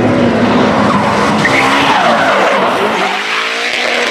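Drift car sliding sideways: its engine is held high in the revs while the rear tyres screech and smoke. The engine note dips and climbs again about halfway through.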